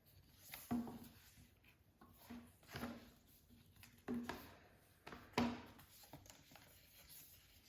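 Hands handling a disc release's packaging: about five sharp clicks or knocks, each trailed by brief scraping and rustling as the case and sleeves are moved.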